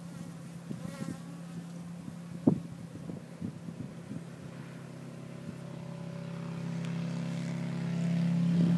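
Honeybees buzzing around a hive in a steady hum that grows louder over the last few seconds, with a single sharp knock about two and a half seconds in.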